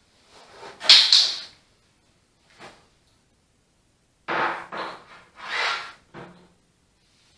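Handling noise from a fixed frameless glass shower panel and its metal hardware being worked loose by hand: a sharp click with a short scrape about a second in, then a cluster of short scrapes and knocks between about four and six seconds in.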